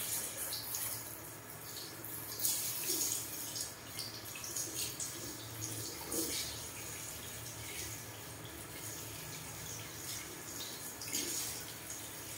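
Wet, splashing water sounds as hands work through a man's wet hair at a salon shampoo basin, coming in irregular bursts.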